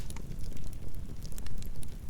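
Campfire burning, the wood crackling with scattered sharp pops over a low steady rumble.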